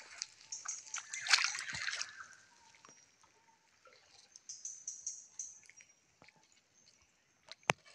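Water splashing and sloshing in a shallow stream as a person wades and works a hand in the water, loudest about a second in, with a single sharp click near the end.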